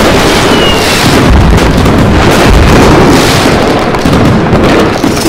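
Fireworks going off without a break: loud, dense crackling and booming bursts, with a short falling whistle a little under a second in.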